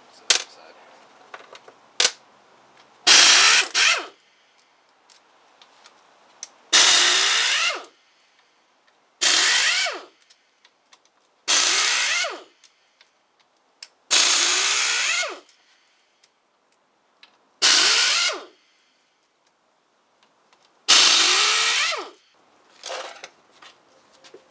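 Handheld power driver spinning out the transmission case bolts with a socket, in about eight separate bursts of a second or so each, the motor's pitch sliding within each run. Small clicks of metal parts come between the bursts.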